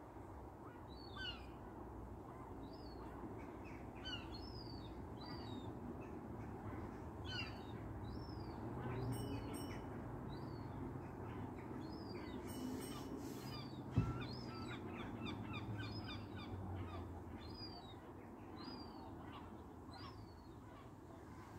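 Small birds chirping and twittering, many short high calls one after another, over a low steady rumble, with a single sharp knock about two-thirds of the way through.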